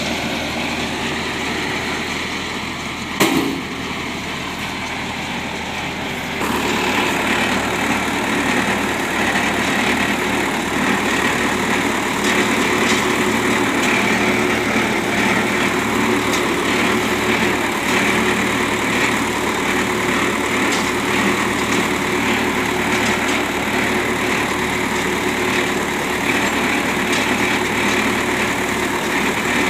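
Vikas 235 baler machinery running steadily with its engine. A single sharp knock comes about three seconds in, and about six seconds in the noise steps up louder and stays there.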